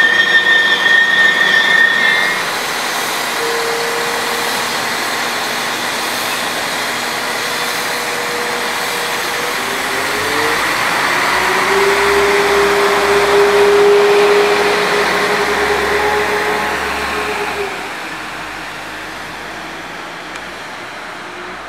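Transport for Wales Class 197 CAF Civity diesel multiple unit running past and away. A high squeal from the wheels lasts for the first two seconds. Then come the wheel rumble and the drone of the diesel engines, whose steady note shifts about ten seconds in and grows louder, then fades after about eighteen seconds as the train draws away.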